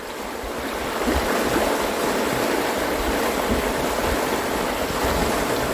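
Steady rush of river rapids, swelling over the first second and then holding, with wind buffeting the microphone in low rumbles.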